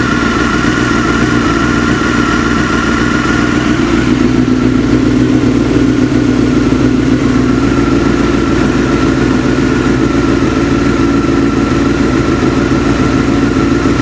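Motorcycle engine idling steadily while warming up, with a knock that the owner finds grows quieter as the engine warms and when the clutch is pulled in. The engine note shifts slightly about four seconds in.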